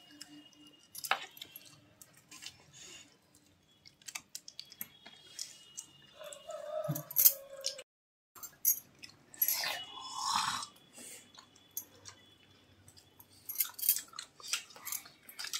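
People eating biryani by hand from steel plates: quiet chewing, with scattered short clicks and scrapes of fingers on the metal plates.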